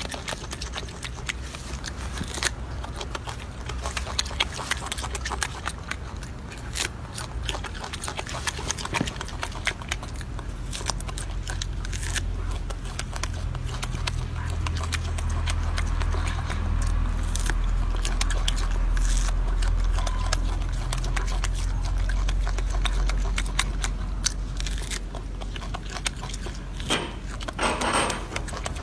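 Golden snub-nosed monkey eating an orange: a run of wet biting and chewing clicks, with a low rumble underneath that is strongest through the middle.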